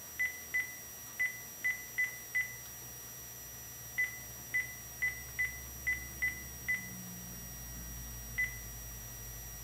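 House phone keypad beeping as a number is dialed: about fourteen short key beeps, all at one pitch, in quick runs with pauses between.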